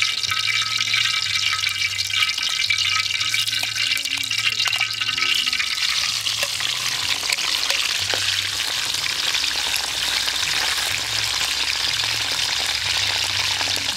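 Hot oil sizzling in a steel wok over a wood fire. About six seconds in, pieces of eel are laid into the pan and the frying sizzle thickens and spreads into a steady, dense hiss.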